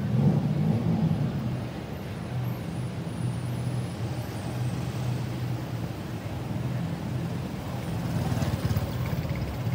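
City road traffic: car, tuk-tuk and motorcycle engines running with a steady low hum. It swells a little near the end as a motorcycle passes close.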